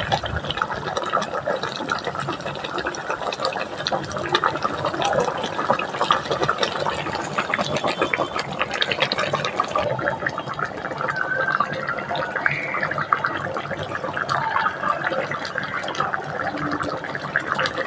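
A steady watery sound, full of small pops and splashes.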